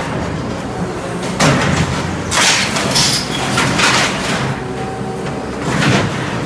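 Caterpillar 226B skid steer loader's diesel engine running under load while its grapple pushes into a wooden rack, with several loud crashes and cracks of breaking, splintering wood about a second and a half, two and a half to three, four and six seconds in.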